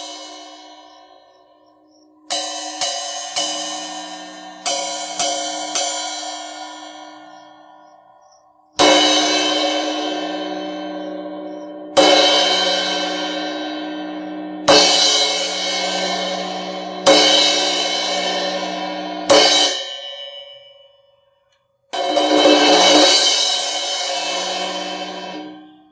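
Zildjian Planet Z 16-inch crash cymbal, played dry. The first part has two sets of three quick lighter strikes. Then come five hard crashes about two to three seconds apart, each ringing out bright and fading. Near the end a sustained loud wash is suddenly cut off.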